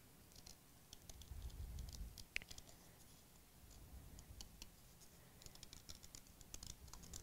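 Faint, irregular snips of small scissors cutting out a paper shape, with light handling of the paper.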